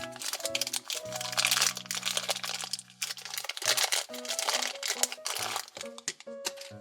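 Plastic toy packaging crinkling and crackling as it is handled and torn open, over background music.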